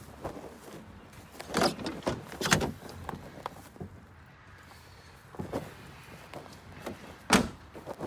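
Handling noises while rummaging for something: a flurry of scrapes and knocks about two seconds in, then a single sharp knock near the end.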